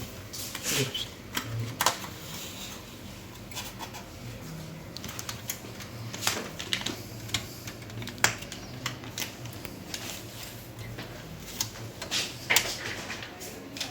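Irregular sharp clicks and taps of small plastic and metal parts being handled and pried during disassembly of an all-in-one PC, over a faint low hum.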